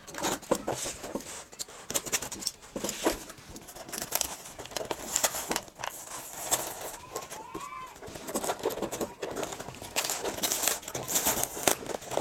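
Packing tape being slit with a cutter and peeled off a cardboard shipping box, with scratchy rubbing and tearing of tape and cardboard in quick irregular strokes. A brief squeak comes about seven seconds in.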